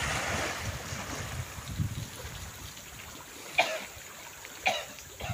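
Sea water washing and lapping over shoreline rocks: a soft steady hiss with low rumbles that eases after the first second. Two short sharp sounds stand out, about three and a half and four and a half seconds in.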